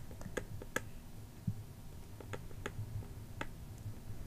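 Soft, irregular clicks, about a dozen, from the computer input device as handwriting is drawn stroke by stroke in a paint program.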